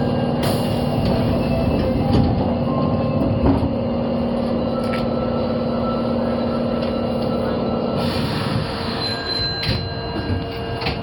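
Osaka Metro 22 series subway train running, with steady motor tones over rail rumble. Two spells of hiss come in, about half a second in and again about eight seconds in.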